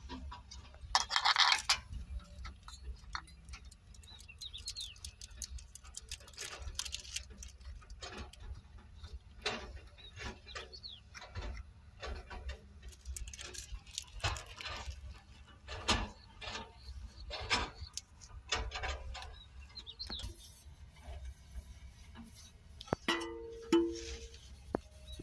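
Irregular clicks, taps and scrapes from hand work on an excavator's air cleaner: the wing nut is unscrewed and the round air filter end cover is pulled off. A steady low rumble runs underneath.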